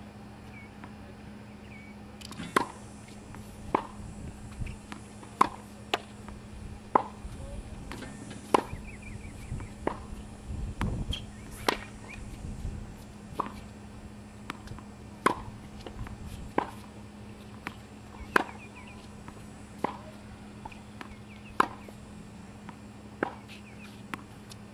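Tennis balls struck by rackets in a baseline rally, one sharp hit about every second and a half.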